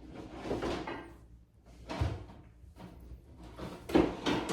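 Kitchen cupboard and drawer noises: a rustle near the start, a sharp knock about two seconds in, and louder knocks and a clatter near the end.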